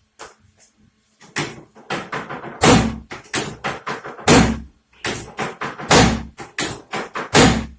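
A fast run of heavy thumps and slaps, about three or four a second, starting about a second and a half in with a brief pause midway, from percussive strikes during a chiropractic treatment.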